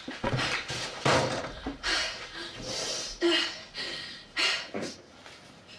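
Several short thumps and scuffling noises, roughly a second apart, dying away about five seconds in.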